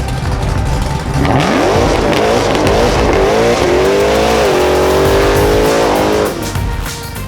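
A drag car at full throttle, its engine pitch climbing hard and dropping back twice at gear changes, then holding high before cutting off suddenly.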